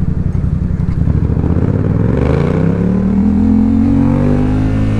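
Yamaha XSR700's parallel-twin engine idling, then revs climbing steadily from about a second and a half in as the motorcycle pulls away from a stop, levelling off near the end.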